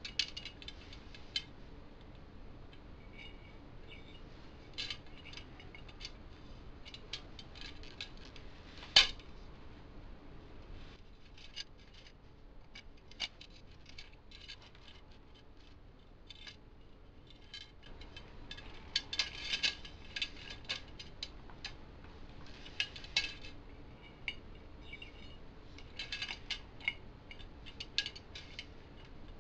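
Bicycle spokes clicking and jingling against the hub motor's flange and the rim as they are threaded through and laced. One sharp click comes about nine seconds in, and quick runs of light clicks come in the second half.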